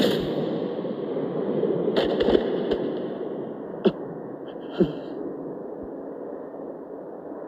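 Anime fight sound effects: a sudden rush of noise that slowly dies away, broken by several sharp hits, the loudest two about four and five seconds in.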